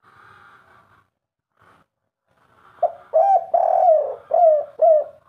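Spotted dove cooing in the 'kuk 3' style: a run of about six low coo notes starting about halfway through, each note sliding up sharply at its onset, with a longer note in the middle.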